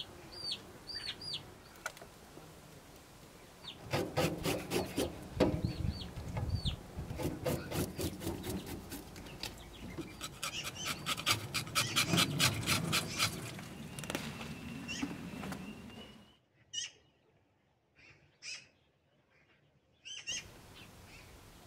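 Small birds chirping, with a long run of quick, rhythmic scrubbing strokes in the middle, several a second: a sponge scrubbing a metal plate at a steel sink. Near the end the sound drops to a near-quiet background with a few faint chirps.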